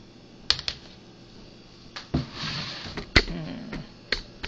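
Handling noise as the recording camera is picked up and moved: a few sharp clicks and knocks, the loudest a little after three seconds, with a short rustle in between.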